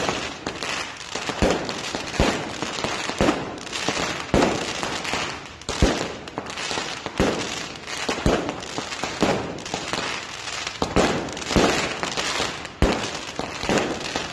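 Aerial fireworks going off overhead: a string of sharp bangs, roughly one a second, over continuous crackling.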